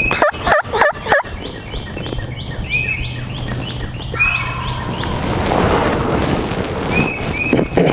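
Wild turkey gobbler gobbling: a loud, rapid rattling gobble of four or five quick notes lasting about a second. It is followed by a run of short, high, evenly spaced falling calling notes, with a couple more near the end.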